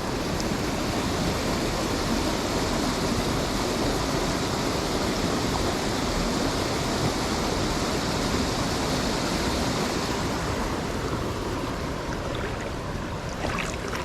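River water rushing over rocks in a shallow, fast-flowing stream, a steady hiss whose upper part eases off about ten seconds in.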